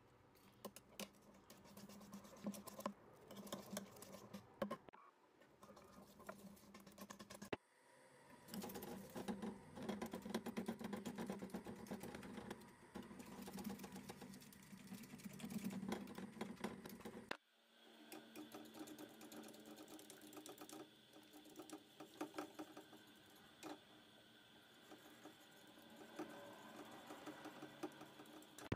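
A metal spoon stirring chocolate sauce in a stainless steel saucepan: rapid light clicking and scraping against the pot, broken off suddenly a few times.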